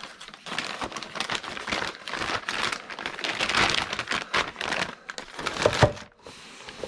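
Plastic bag crinkling and rustling as hard drives are handled in and out of it, with one sharp knock near the end.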